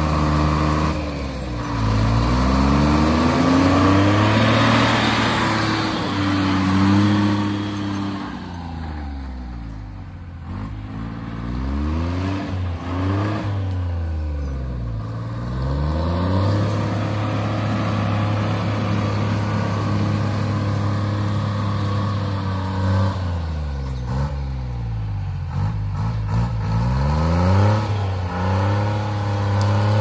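Timberjack skidder's diesel engine running, its revs dropping and rising again several times, with steady stretches in between.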